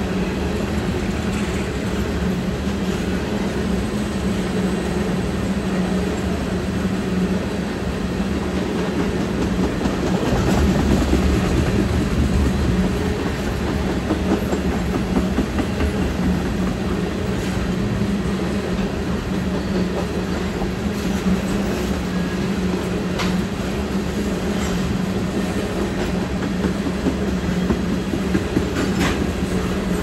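Empty ethanol tank cars of a freight train rolling by, a steady rumble of steel wheels on rail, with a few sharp clicks near the end.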